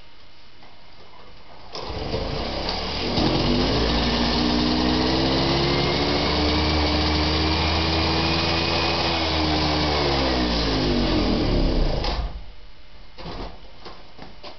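Piaggio 49cc two-stroke moped engine catching about two seconds in and revving up to a high, steady speed. It holds there for several seconds, then sags and stops abruptly about twelve seconds in, on an engine the owner calls hard-starting and lean. A few light knocks and clicks follow.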